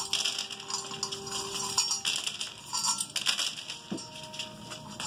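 Corgi puppies crunching dry kibble scattered across a hardwood floor, with many small clicks and clinks of hard pellets on the boards.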